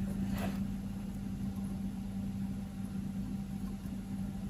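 A steady low electrical hum with a faint rumble underneath, from equipment running on the soldering bench.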